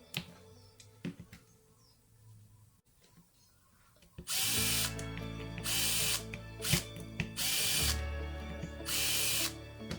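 A power tool, run in four short bursts in the second half, during disassembly of a small two-stroke brushcutter engine. A few light clicks and knocks come before it, and background music plays throughout.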